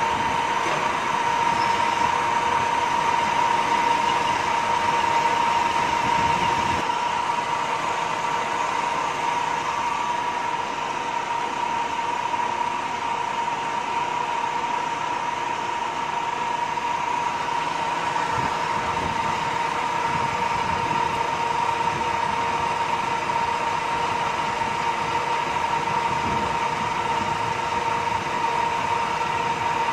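An old centre lathe running steadily while its tool takes a light turning cut along a metal bar, with a constant high whine from the spindle drive. A low rumble drops away about seven seconds in.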